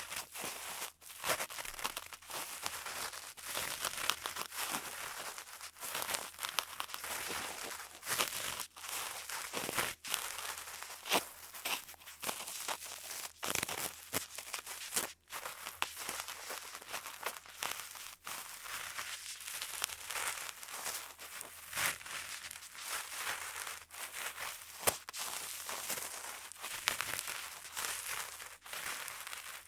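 Cotton swabs rubbing and scraping inside the silicone ears of a binaural microphone: a continuous close-up scratchy rustle, full of small crackles and clicks.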